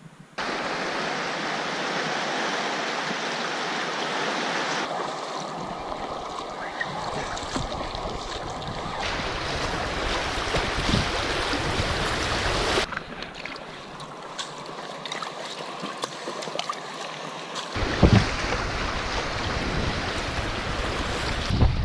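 Fast river water rushing and splashing around a packraft running choppy riffles, mixed with wind buffeting the microphone. The rushing begins abruptly just after the start and changes abruptly in loudness and tone several times.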